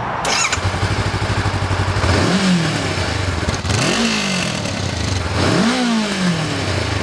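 Honda CB500X's 471 cc parallel-twin engine idling, then revved three times in neutral, each blip rising and falling back to idle. The throttle blips show how the engine picks up on the throttle.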